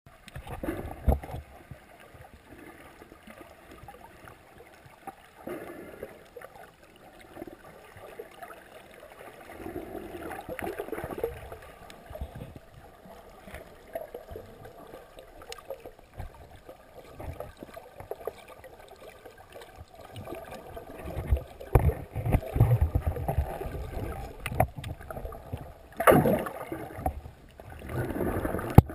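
Muffled underwater noise picked up by a camera in a waterproof housing: water swishing and gurgling with irregular low thumps and knocks as the camera moves, busier and louder in the last third with a few strong bursts near the end.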